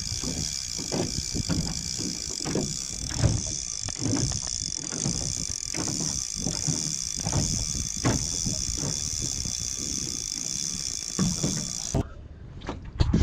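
Fishing reel and tackle being handled: irregular clicks and rattles over a steady high hiss, which stops abruptly near the end.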